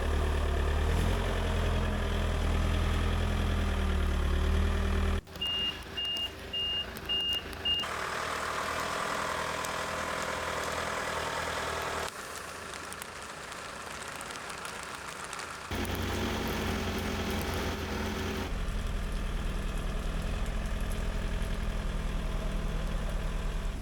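Truck engine running steadily, broken into several segments by abrupt cuts. About five seconds in, a reversing alarm beeps about twice a second for a couple of seconds.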